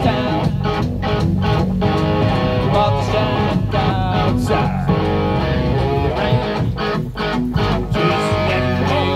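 Live band playing through PA speakers: an electric guitar lead with bending notes over electric bass and a steady drum beat.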